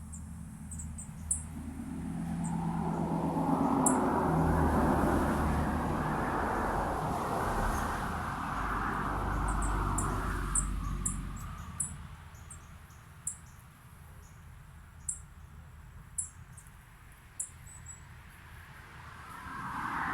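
A vehicle passes, its broad road noise swelling over a few seconds and fading out by about ten seconds in, and another begins to approach near the end. Small birds give scattered short, high chirps.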